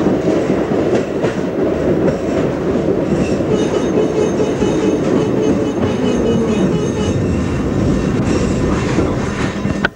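Four-wheel tram running, heard from inside the driver's cab. From about three and a half seconds in, a buzzer sounds steadily for several seconds: the emergency-stop signal.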